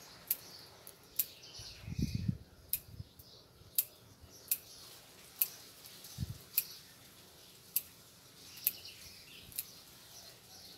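Small bonsai scissors snipping Ficus microcarpa leaves, a sharp click about once a second, around ten cuts. The grower is cutting leaves partway across the blade, leaving part of each leaf, for a partial defoliation. Two low thumps from handling come about two and six seconds in.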